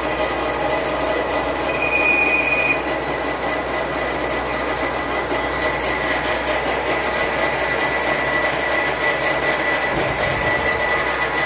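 Metal lathe running, turning a truck engine's fan spindle: a steady mechanical noise with a high whine held throughout, and a brief higher squeal about two seconds in.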